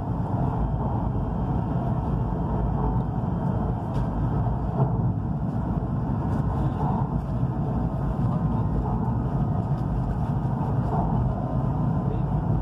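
Steady low rumble of a high-speed train running along the track at reduced speed, heard from inside the passenger carriage.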